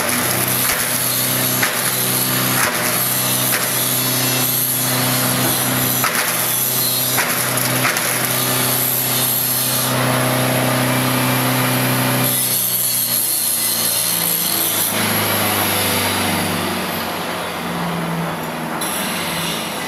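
Single-shaft waste shredder (Chudekar Model CS 5) running, its motor humming steadily while corrugated cardboard is cut up, with continuous crackling, crunching and tearing from the blades. The cutting noise thins out in the second half and the machine gets a little quieter near the end.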